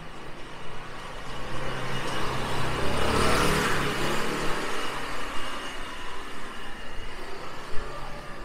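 A motor vehicle passing on a city street, its engine and tyre noise swelling to a peak about three seconds in and then fading into background traffic.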